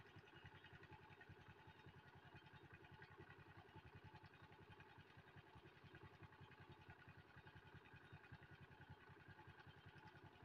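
Near silence, with the faint low throb of an engine running steadily.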